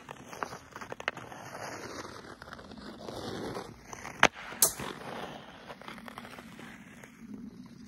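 Ice skate blades scraping and carving on rough outdoor ice as a skater glides and turns, with two sharp clacks from a hockey stick a little after four seconds in.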